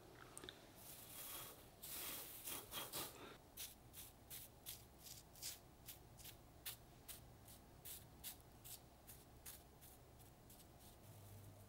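Thin gold leaf crinkling as hands press it onto the chicken, then a soft brush dabbing the leaf down in quick light strokes, about two to three a second.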